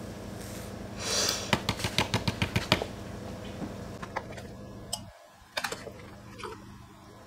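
Metal spoon tapping against the rim of a glass beaker in a rapid run of about ten light clicks, knocking kaolin clay powder off the spoon, followed by a few scattered knocks as the spoon and the clay bag are handled.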